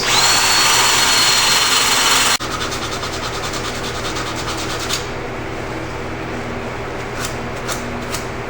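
Power tool with a wire wheel scrubbing corrosion off the starter harness terminals: the motor whines up to speed and the wire brush scrapes loudly for about two seconds, then the sound drops abruptly to a quieter, fast rubbing scrape that fades out about halfway through.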